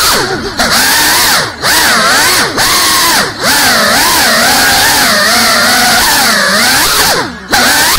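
The brushless motors and propellers of a GEPRC Cinelog 35 cinewhoop FPV drone whine in flight. The pitch rises and falls as the throttle changes, and the sound drops away briefly five times where the throttle is cut.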